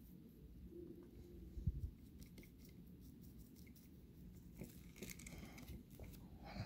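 Faint scratchy dabbing of a paintbrush working black paint into textured polymer clay, with a few soft clicks of the brush near the end and a soft low thump about a second and a half in.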